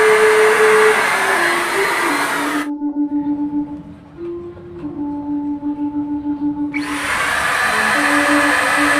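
TOTAL handheld electric paint spray gun running with a steady motor whir and hiss as it sprays, cutting out sharply about a third of the way in and starting again after about four seconds. A simple melody plays underneath.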